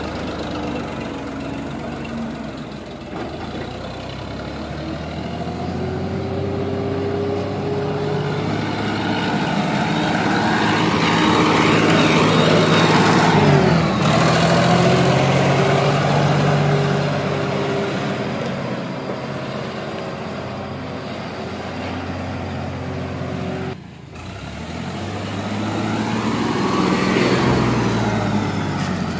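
Sonalika DI 45 RX tractor's diesel engine working hard as it pulls a trailer loaded with soil. Its pitch rises and falls, and it is loudest about halfway through.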